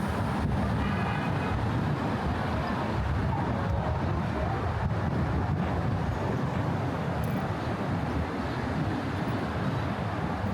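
Steady rumble of car traffic on the Brooklyn Bridge roadway, with faint voices of passers-by about a second in.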